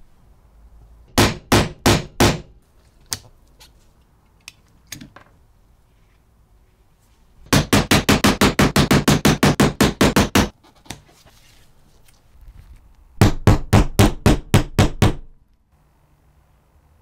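Hammer striking a punch through a thin black sheet to cut out small washers. Four blows come a little over a second in, then a fast even run of about eighteen blows from about seven and a half seconds, and about nine more near the end.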